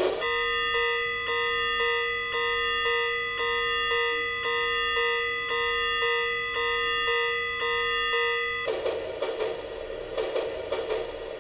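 Railroad crossing signal desk lamp's sound unit playing a crossing-bell ding, struck about twice a second. About eight and a half seconds in the bell stops and a noisier sound takes over, pulsing at the same pace.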